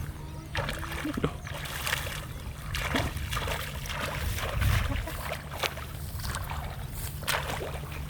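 Water splashing and sloshing in short irregular bursts over a steady low rumble.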